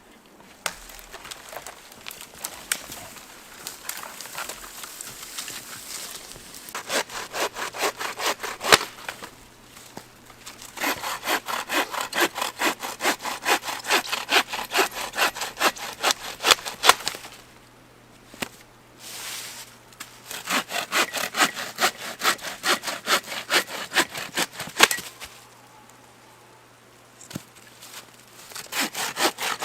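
Hand saw cutting through wood in several bouts of quick, even back-and-forth strokes, with short pauses between bouts.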